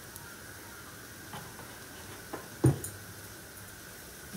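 Ground spices frying quietly in coconut oil in a pan, with a few knocks of a spoon against the pan as the masala is stirred; the loudest knock comes a little past halfway.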